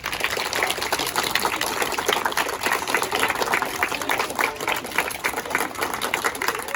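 A class of children applauding: many hands clapping in a dense, steady patter.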